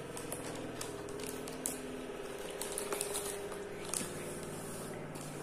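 Plastic courier mailer rustling and crinkling as it is handled, with a few scattered soft clicks.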